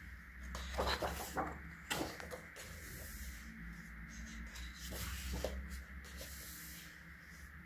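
Heavy paper pages of a coloring book being turned by hand: short papery rustles and flaps, with hands brushing over the sheets, about a second in, around two seconds and again around five seconds.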